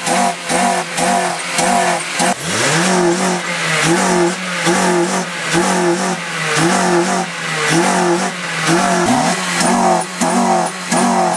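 Car engine revved hard over and over by pumping the gas pedal with the car standing still, the revs rising and falling about twice a second. Twice, about two and nine seconds in, the revs drop low and climb back up more slowly.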